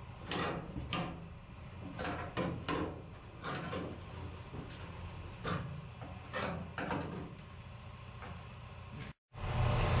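Steel screwdriver prying and scraping against sheet-steel brackets on a 1955 Chevrolet pickup's cab floor: a string of short metal scrapes and clinks, about a dozen scattered over several seconds. The sound cuts off abruptly near the end.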